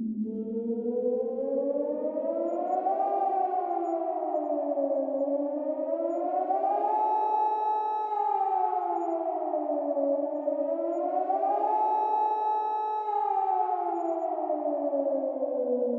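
Nuclear attack warning siren (civil defense siren) wailing, with two notes sounding together. The pitch rises and falls slowly, peaking about every four to five seconds. On the later peaks it holds at the top for a second or so before sliding back down.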